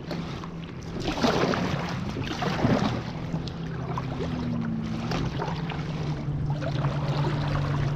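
Kayak paddle strokes splashing in calm seawater as a fishing kayak is paddled along, with a steady low hum underneath.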